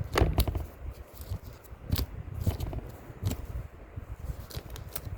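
Small metal pieces being snipped and handled: a series of irregular sharp clicks and snips.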